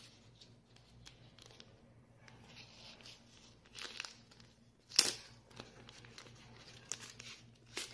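Thin foam packing sheet rustling and crinkling as hands peel it off a silicone phone case. It comes in faint, short bursts, the loudest about five seconds in.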